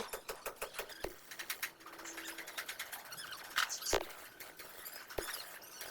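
Faint, irregular ticking and clicking, with three louder knocks about one, four and five seconds in.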